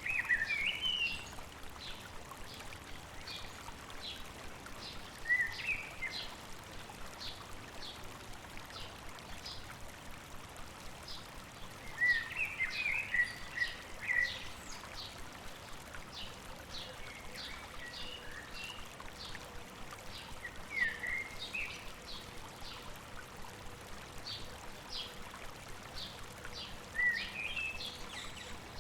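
Running stream water under birdsong: short warbled bird phrases come every few seconds, over a steady run of short high chips, about two or three a second.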